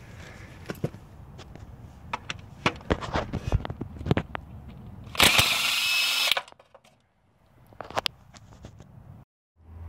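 Metal clanks as the socket and extension are fitted onto a Honda crankshaft pulley bolt, then a cordless impact wrench (Snap-on CT8850) hammers in one loud burst of about a second, about five seconds in, breaking the crank bolt free.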